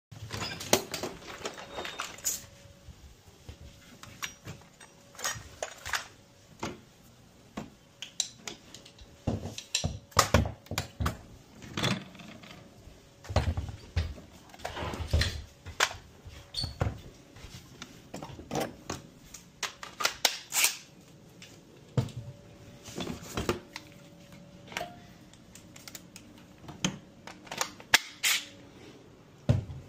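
Tools and plastic cases being handled and rummaged through in a toolbox: irregular clicks, knocks and clatter of hard plastic and metal.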